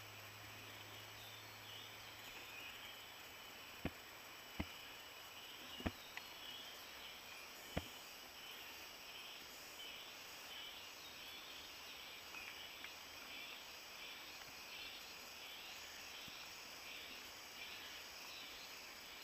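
Faint insect chorus, a high pulsing trill repeating about twice a second. Four sharp clicks come between about four and eight seconds in, and a low hum stops about four seconds in.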